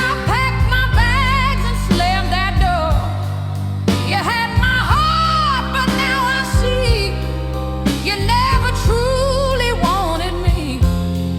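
Slow blues song: a singing voice holding long, wavering notes over a steady band accompaniment with bass.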